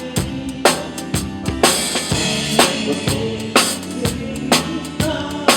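Live band playing a steady groove at a sound check: a drum kit with a heavy accent about once a second and lighter hits between, over held instrument notes.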